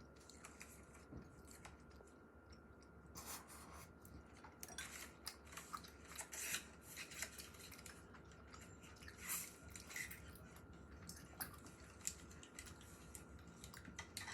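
Quiet eating sounds: a person chewing, with a scatter of short, crisp clicks and crunches starting about three seconds in.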